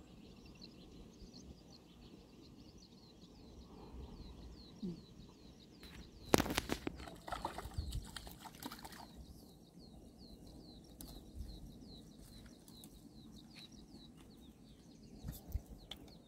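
Small birds chirping over and over against a low outdoor rumble. About six seconds in comes a loud crackling, splashy burst that lasts about three seconds.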